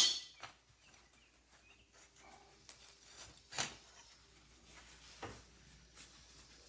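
Skid steer undercarriage rollers being handled during inspection: a loud knock at the very start, then a few quieter knocks and clicks.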